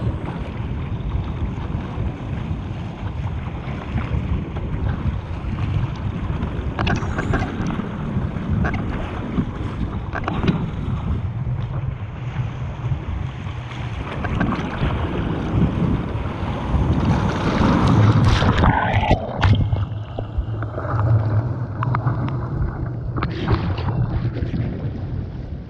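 Wind buffeting the microphone over water rushing past a surfski hull, with the splash of paddle strokes now and then. The rush swells loudest about two-thirds of the way through.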